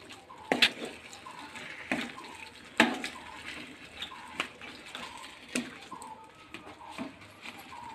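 Wooden spatula stirring chicken in thick masala gravy in a kadai, scraping and knocking against the pan several times. The loudest knock comes a little under three seconds in.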